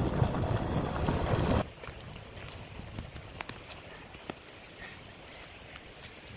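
Rain falling, with many single drops ticking on a surface. A louder, dense noise fills the first second and a half, then cuts off suddenly, leaving a quieter, steady rain.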